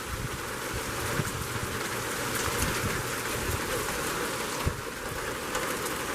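Heavy rain falling in a steady hiss, with gusty wind buffeting the microphone in low rumbles.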